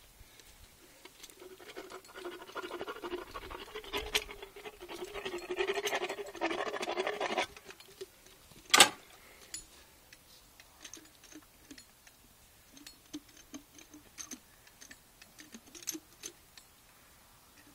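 Dental float rasping a horse's teeth: a dense run of scraping for several seconds, then one sharp, loud knock, then faint, scattered scrapes and ticks.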